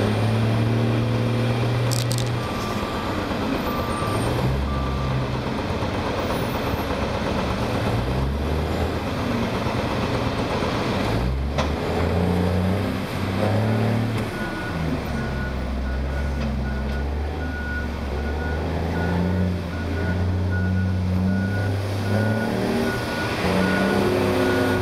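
Cat 725 articulated haul truck's diesel engine running and revving, its pitch rising and falling as the bed is raised to dump the load. A reversing alarm beeps three times near the start and beeps steadily through the second half, with a single sharp knock about halfway through.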